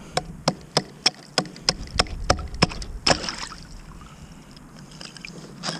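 Hatchet chopping into thin lake ice beside a kayak: about nine quick, sharp strikes, roughly three a second, then a longer, noisier crunch about three seconds in.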